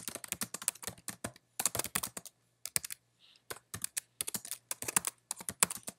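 Typing on a computer keyboard: quick, irregular runs of keystrokes with a short pause about halfway through.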